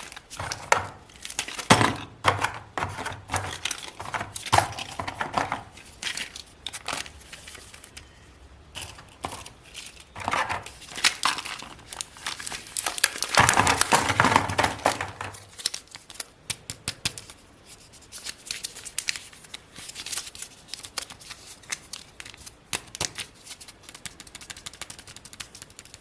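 Plastic wrappers of Kinder Joy eggs being crinkled and torn open: an irregular run of crackles and rips, loudest about halfway through.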